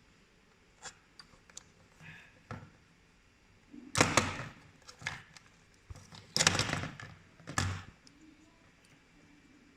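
Scattered light clicks, then three louder knocks and clatters of small hard parts being handled and set down, during an RC boat motor and circuit-board repair.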